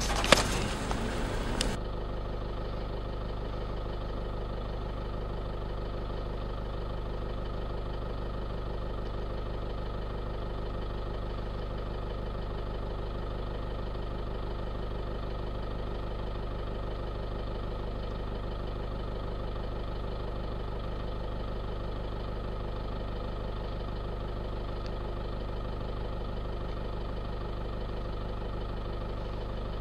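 A vehicle engine idling steadily, a low even hum that does not change. In the first two seconds a louder rush of noise with one sharp knock stops abruptly.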